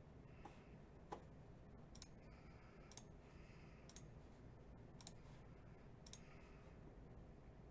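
Near silence with faint, sharp clicks about once a second, and one other small click just after a second in.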